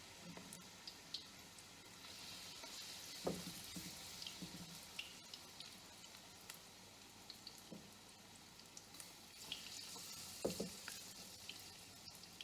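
Vegetable fritters (bakwan) frying in hot oil in a frying pan: a faint, steady sizzle with scattered small pops. There are two light knocks, about three seconds in and again near ten seconds.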